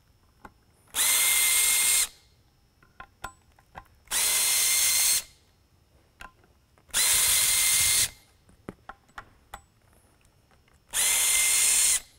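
Cordless drill-driver running in four separate bursts of about a second each, backing out the four screws that fasten the spotlight's lens to its cast aluminium housing. Each burst is a steady motor whine, with small clicks of the bit and handling in the gaps between.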